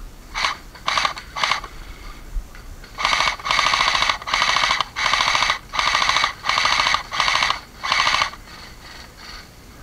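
JG G3 airsoft electric rifle (AEG) firing full-auto, its gearbox cycling rapidly in each burst: three short bursts, then after a brief pause a run of about seven longer bursts in quick succession.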